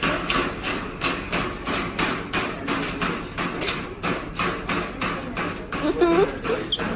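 Rapid, regular tapping or knocking, about four taps a second, with a short parrot squawk about six seconds in.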